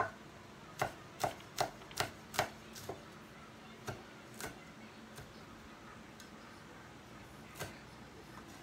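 Cleaver chopping red chili peppers on a wooden cutting board: a run of about six sharp knocks in the first three seconds, then a few scattered ones.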